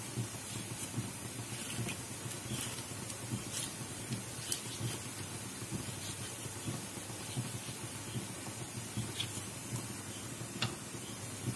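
Faint soft ticks and taps of a knife slicing through a hand-held tomato and the pieces dropping into a pot of lentils, scattered irregularly over a steady background hiss.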